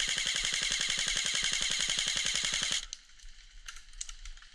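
G&G CM15 electric airsoft rifle firing one long full-auto burst: a rapid, even stream of shots from the gearbox cycling, which stops abruptly about three seconds in. A few faint clicks follow.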